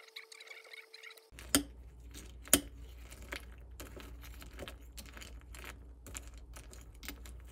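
Light tapping on a laptop keyboard. About a second in, it gives way to a metal spoon scooping cereal in milk in a ceramic bowl: many small clinks and scrapes, with two sharp clinks of the spoon against the bowl near the start.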